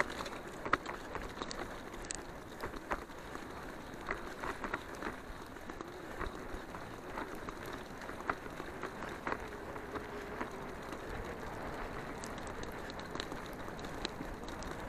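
Bicycle rolling fast along a dirt trail: steady tyre and ground noise with scattered clicks and rattles from the bike.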